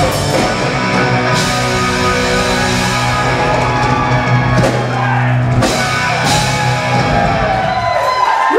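Rock band playing live, with electric guitar, bass guitar and a drum kit, in the last bars of the song.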